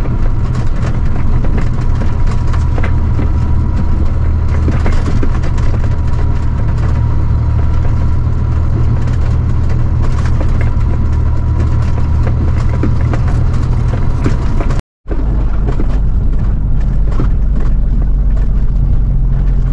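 Semi-trailer truck's engine running steadily under load, with frequent rattles and knocks as the truck jolts over a rough dirt track. The sound breaks off for a moment about three-quarters of the way through, then carries on.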